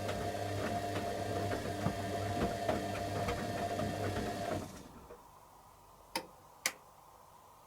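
Candy Aquamatic 100F washing machine tumbling its drum in the heated wash, the motor humming with a steady tone and regular ticking. It stops about four and a half seconds in, and two sharp clicks follow about half a second apart near the end.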